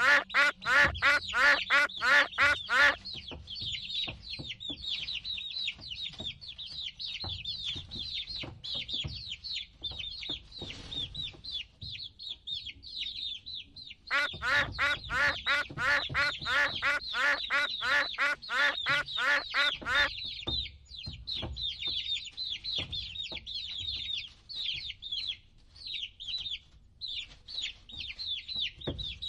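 A group of baby chicks peeping continuously in high, rapid chirps. Twice, for a few seconds, a louder and lower pitched call repeats several times a second over the peeping.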